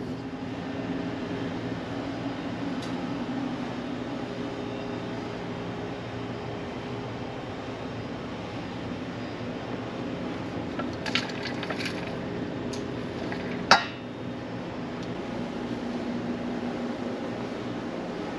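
Steady low hum of the ferry's machinery and ventilation, with a few light clinks about eleven seconds in and one sharp knock a couple of seconds later.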